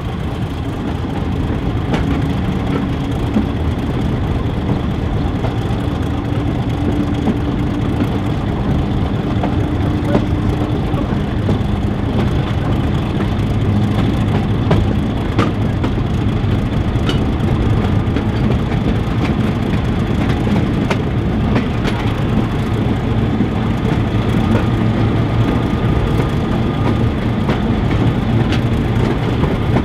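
Class 31 diesel locomotive's engine working steadily at the head of the train, heard from an open coach window along with the rush of the moving train. Occasional short clicks from the wheels on the track.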